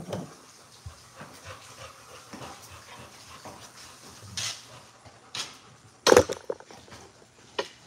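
A dog making short, scattered sounds at close range, the loudest a sharp burst about six seconds in.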